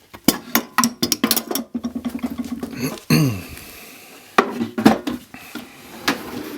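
Quick rattling and clicking of hard objects being handled, then a brief falling squeak and two sharp knocks, with a few lighter clicks near the end.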